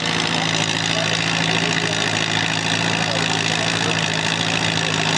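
Pulling tractor's engine running flat out under heavy load as it drags the weight sled, front wheels lifted, a loud steady drone that holds one pitch.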